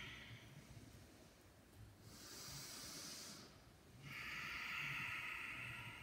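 A woman breathing heavily close to the microphone, catching her breath after a hard cardio set. One breath fades out just after the start, a sharper, hissier breath comes about two seconds in, and a longer, fuller breath follows from about four seconds.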